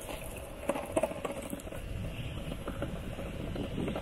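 Longboard wheels rolling over a brick-paver path: a steady rough rumble, with a few sharp clicks about a second in.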